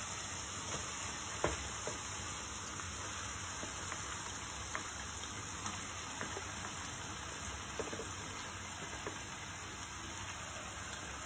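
Onion-tomato masala frying in a pan with a steady, quiet sizzle. A few faint knocks sound as raw chicken pieces are added to the pan.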